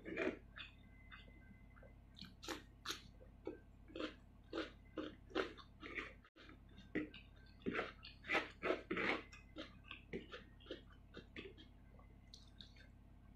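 A person chewing rice and salted fish close to the microphone: an uneven run of short wet mouth smacks and clicks, thickest in the second half.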